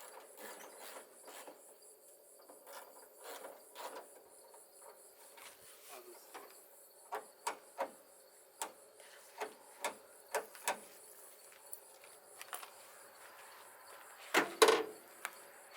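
Irregular light clicks and taps of hand work on hood latch hardware, with a louder pair of knocks near the end, over a steady background of crickets chirping.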